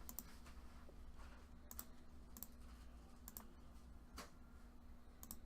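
Faint, sparse computer clicks, about six short sharp ticks spaced roughly a second apart, over near silence with a faint steady hum.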